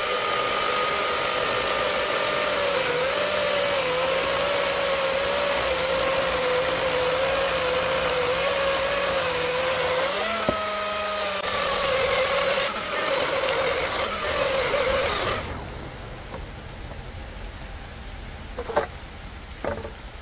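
Husqvarna Power Axe 350i battery chainsaw running on turbo mode and cutting through a log: a steady motor whine whose pitch sags under the load of the cut and rises again about ten seconds in as the bar comes through the log. The saw runs on and stops abruptly about fifteen seconds in, followed by a couple of sharp knocks.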